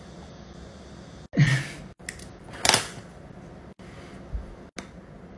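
Two short, soft breathy rustles over quiet room tone, about a second and a half in and again near three seconds, as a strip of white paper is handled and folded.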